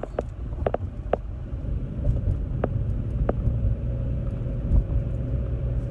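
Car cabin noise while driving: a steady low rumble of engine and tyres on the road, with a few light clicks and a faint steady hum that comes in about halfway.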